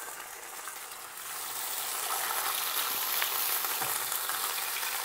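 A sauce-dipped tortilla sizzling as it fries in hot oil in a pan, moved about with a spatula. The sizzle grows louder a little over a second in and holds steady, with faint ticks now and then.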